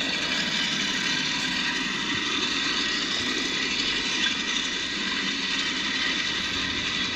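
Freight cars of a short train rolling past on the track, a steady noise of wheels on rail with no distinct clicks.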